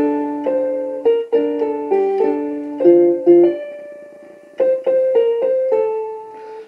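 Electric piano playing an instrumental melody of struck, decaying notes and chords, dropping to a quieter held chord in the middle before a new phrase starts, played back from a cassette tape.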